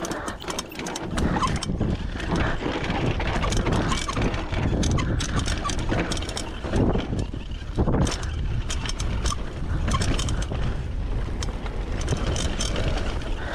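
Mountain bike ridden fast down a rough race trail. Wind rumbles on the microphone, the tyres run over dirt, and the bike rattles with many sharp clacks throughout.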